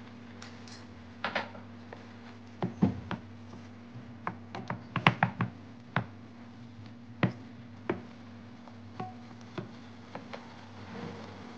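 Wooden spatula stirring chunks of chicken in a thick sauce in a non-stick pan, knocking and tapping against the pan at irregular intervals over a steady low hum.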